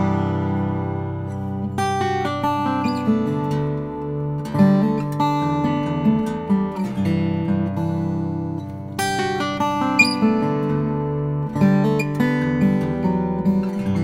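Nightingale N400F 12-fret steel-string acoustic guitar, with exotic ebony back and sides and a sinker redwood top, played fingerstyle: picked melody notes over ringing bass notes.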